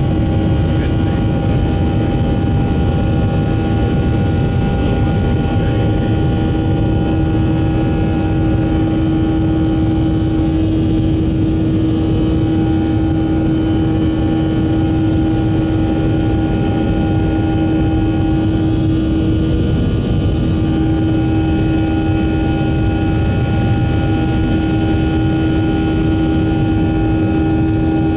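Jet airliner cabin noise heard from a window seat: the engines' steady drone, a low rumble with a few constant hum tones riding on it.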